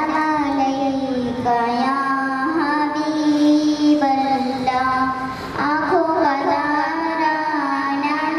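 A young girl singing a naat into a microphone, holding long notes that bend and turn slowly from one to the next.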